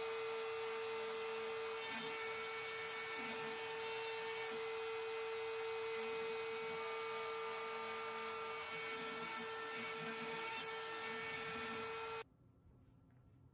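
CNC router spindle running with a steady high whine as its bit carves script lettering into an end-grain wooden butcher block. The sound cuts off suddenly near the end.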